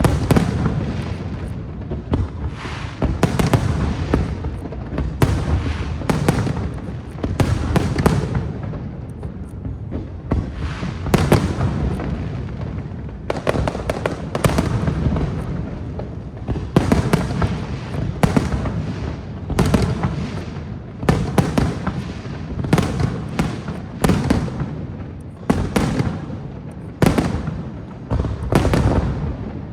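Aerial fireworks display: a rapid, continuous series of booms and sharp cracks from bursting shells, one after another every second or so, over a steady deep rumble.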